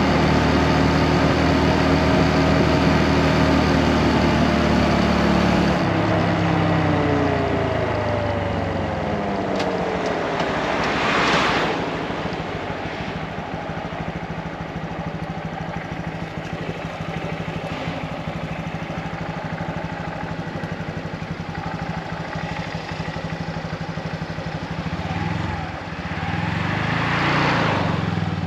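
Motorcycle engine heard from on the bike, running steadily, then easing off with its pitch falling from about six seconds in. After that it settles to a lower steady note. Two brief rushes of noise swell and fade, one about halfway through and one near the end.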